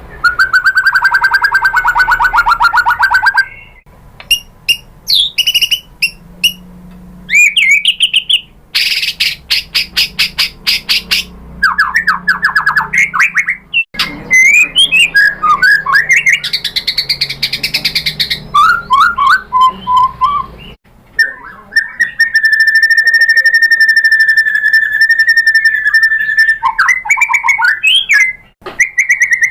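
White-rumped shama singing a loud, varied song of whistled glides, fast trills and rattling notes, with one long, even trill lasting about five seconds in the second half.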